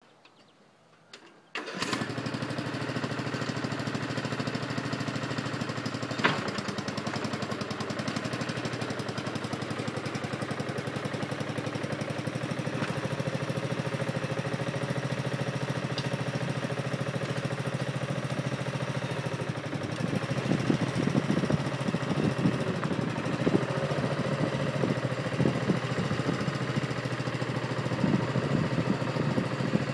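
Craftsman DYT4000 lawn tractor engine running steadily under heavy load while towing a travel trailer; the sound comes in suddenly a little under two seconds in. About two-thirds of the way through it turns louder and rougher, with an irregular crackle.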